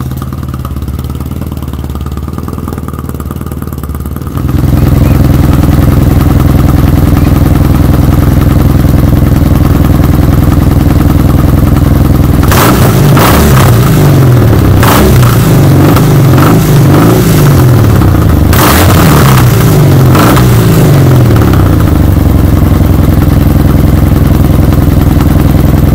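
Kawasaki W800's air-cooled parallel-twin engine idling steadily, louder from about four seconds in. In the middle come a run of quick throttle blips, the pitch rising and falling several times over about eight seconds, before it settles back to idle.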